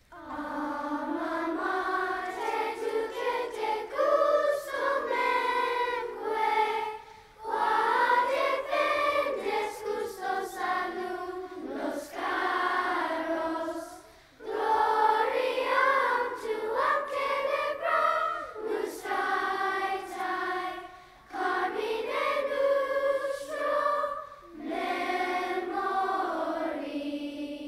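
A children's choir singing, in phrases of a few seconds with short breaks between them.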